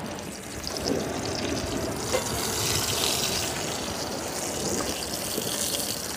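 A large prawn sizzling and crackling in hot coconut oil in a frying pan, a steady hiss that grows a little louder about a second in.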